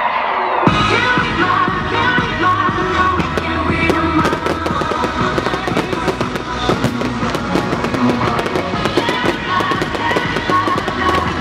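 Classic rock music with fireworks bursting and crackling over it, the crackles growing dense from about four seconds in.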